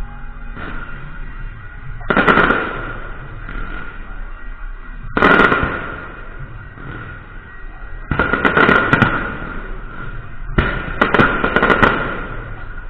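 Electronic firecracker machine letting off four bursts of rapid crackling pops, each one to two seconds long, about every three seconds, over a steady background with a constant high hum.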